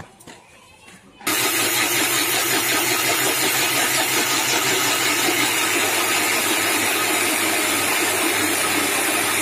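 Electric mixer grinder grinding soaked rice and water into a batter in its steel jar. It switches on about a second in and runs steadily at full speed, a loud, even noise over a constant motor hum.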